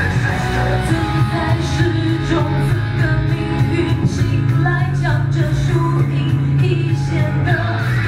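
A woman singing a pop-rock song live into a handheld microphone over a loud band backing with a steady, heavy bass, played through a venue's sound system.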